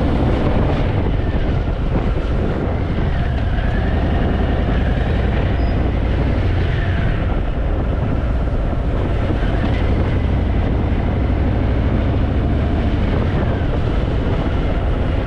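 Harley-Davidson Fat Boy's V-twin engine running at low speed while filtering through stopped traffic, its note rising and falling slightly now and then.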